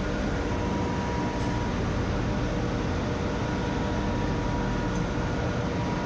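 Steady machinery noise of a ship's engine room: an even hum and hiss with no breaks.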